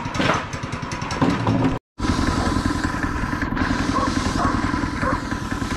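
Yerf Dog 3203 go-kart's small engine idling steadily, with the sound cut off briefly about two seconds in.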